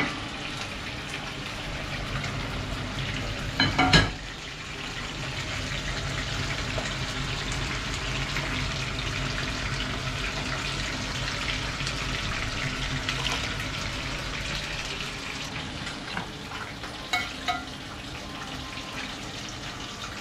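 Fish frying in hot oil in a pan on a gas stove: a steady sizzle, with liquid poured from a mug into a pot of peas. A few short knocks of pots and utensils come at about four seconds and again near the end.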